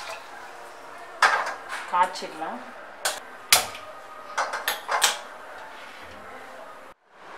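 Stainless steel pan clanking against the grate of a gas stove as it is moved and set on the burner, with sharp clicks as the burner is lit by a hand-held lighter. Several separate knocks, a cluster of them about a second apart in the middle.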